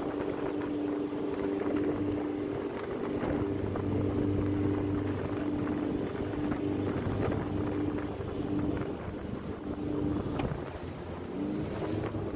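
Motorboat under way: a steady engine hum with water rushing and splashing along the hull, and wind on the microphone.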